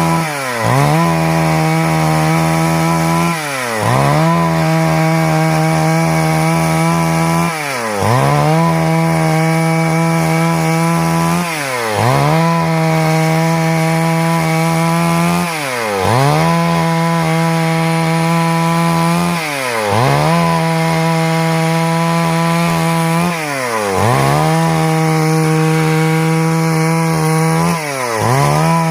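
Stihl MS 382 two-stroke chainsaw running at high revs while cutting wood. About every four seconds its pitch drops sharply and recovers within half a second.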